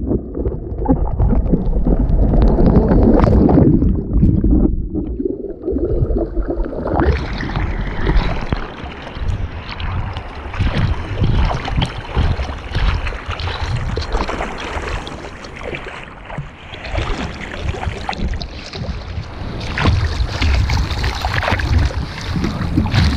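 Wind buffeting the microphone over the steady wash of ocean surf; the wind rumble is heaviest in the first few seconds, and the surf fills out from about seven seconds in.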